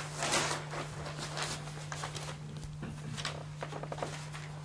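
Large flipchart paper sheets rustling as pages are lifted and flipped over, in a series of short rustles.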